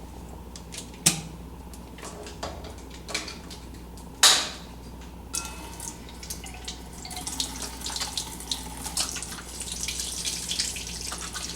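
Things being handled on a counter, a few sharp clicks and knocks with a loud one about four seconds in, then a tap running into a sink with small clatters over it.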